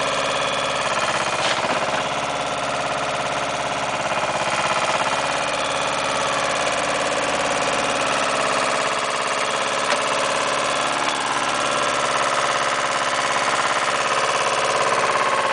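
Engine of an AUSA 200 RMR minidumper running steadily at raised revs, driving the hydraulics of its backhoe arm as the bucket digs soil. Brief knocks come about a second and a half in and near ten seconds.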